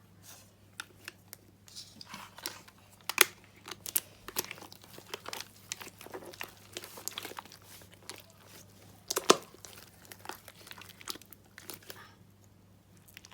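Slime being squeezed and poked by hand: a dense run of sharp clicks and crackles, loudest about three seconds in and again about nine seconds in, over a faint low steady hum.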